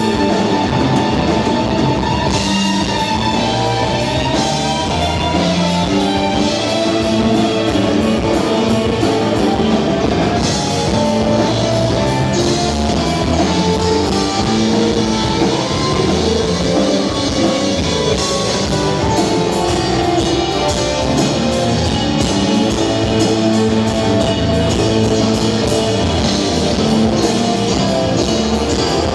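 Live rock band playing a song: electric guitars over a steady drum-kit beat.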